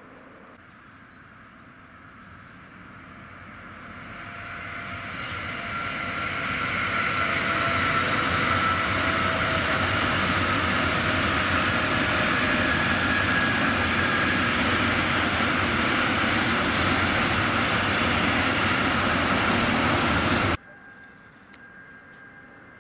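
Freight train of tank wagons rolling past on the rails, the rolling noise swelling over several seconds as it nears and then holding steady, with a few faint high steady tones from the wheels over it. It cuts off abruptly near the end.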